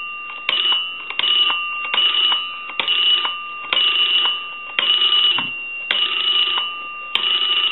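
Rotary dial of an Automatic Electric Space Saver 83 telephone being dialed through its digits, the dial freshly oiled, cleaned and adjusted. Each digit sets off a short bell-like ring that starts sharply and fades, about once a second. The gaps grow longer as the higher digits take longer to return.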